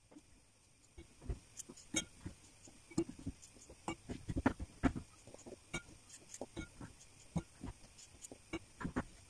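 Whole cucumbers being packed by hand into glass jars: irregular soft knocks and clunks of cucumbers against the glass and against each other, several a second, starting about a second in.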